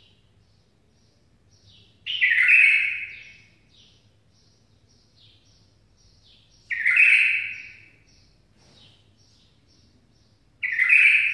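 Caged songbird singing: three loud song phrases about four and a half seconds apart, each starting sharply and fading away over a second or so, with faint short chirps in between.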